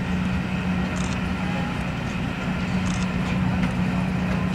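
Passenger coaches rolling past: a steady rumble and hum, with a short high hiss about every two seconds.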